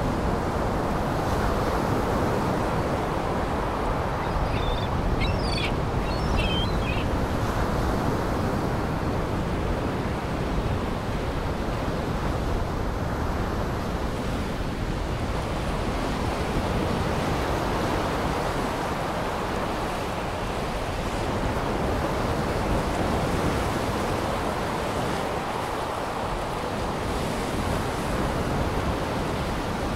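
Steady rush of waves washing against a shore, with a few short high chirps about five to six seconds in.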